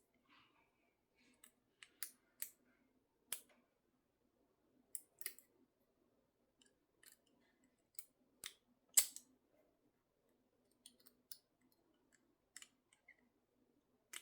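Peerless 700C handcuffs being picked: faint, irregular sharp metallic clicks and small scrapes of the pick working the double lock and the cuff's lock, the loudest click about nine seconds in.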